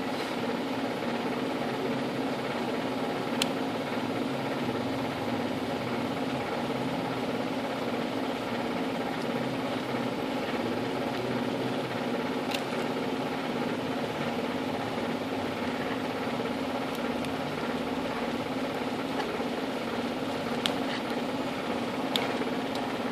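A steady, unchanging machine hum, with a few brief sharp clicks scattered through it.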